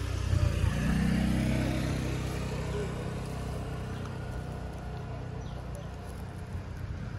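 An engine running steadily close by, loudest about a second in and then slowly fading away.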